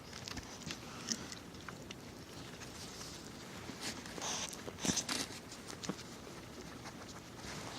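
Three-week-old Maltese–Shih Tzu puppies shuffling and scrabbling about, small clicks and rustles with a cluster of louder scuffs about four to five seconds in.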